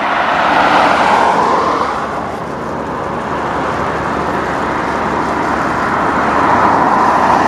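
Road traffic passing close by: a steady rush of tyre and engine noise that swells, eases off about two seconds in, then builds again.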